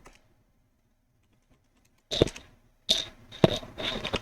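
Computer keyboard being typed on in short clusters of key clicks, starting about two seconds in after a near-silent first two seconds.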